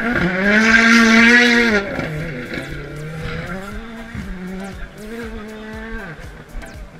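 A rally car passes close at full throttle, loudest in the first two seconds. It then pulls away along the stage, its engine note dropping and climbing again several times as it shifts gear.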